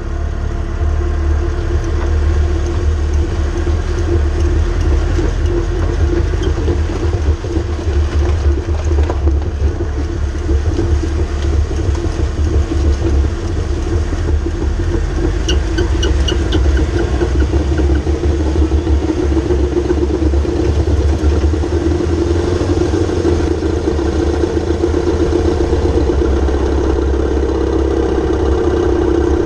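Mercedes ML350 under way: a steady low rumble with a droning hum from the drivetrain, typical of a worn-out driveshaft carrier bearing. The drone grows stronger near the end.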